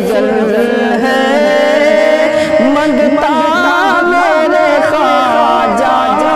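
Male voices singing a manqabat, a Sufi devotional song, in long drawn-out phrases whose pitch wavers and turns in ornamented runs.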